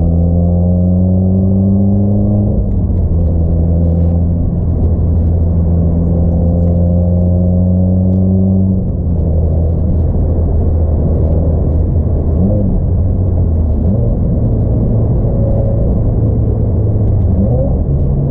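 Subaru WRX flat-four engine's low rumble, its pitch creeping slowly upward and dropping back about two and a half seconds in and again around nine seconds; after that it runs more unevenly.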